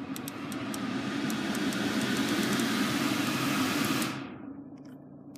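Car climate-control blower fan rushing air through the dashboard vents, swelling over the first two seconds and then cutting off about four seconds in, with a few light clicks from the controls. A low steady hum runs under it.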